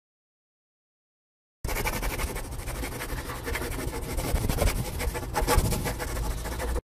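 Marker pen scribbling on a whiteboard, a continuous scratchy writing sound that starts about a second and a half in and cuts off abruptly near the end.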